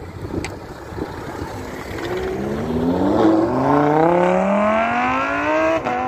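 Supercar engine accelerating hard, its note climbing in pitch through the gears with an upshift about three seconds in and another near the end, loudest in between.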